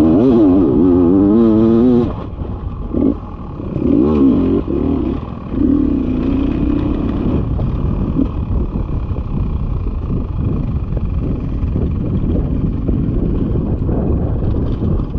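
Dirt bike engine revving, its pitch wavering rapidly up and down for the first couple of seconds, then held in shorter spells, with a rough rumble and clatter for the rest.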